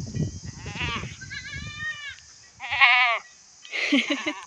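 Goats bleating: about four separate bleats, the loudest and longest about three seconds in.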